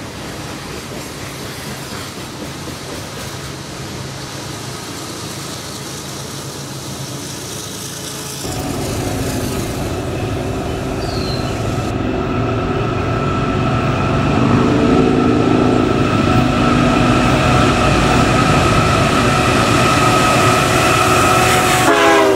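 Loaded coal hopper cars rolling past on the rails. Then a Union Pacific freight's diesel locomotives approach, sounding the horn in a steady blast that grows louder, and the horn's pitch drops sharply as the locomotives pass beneath near the end.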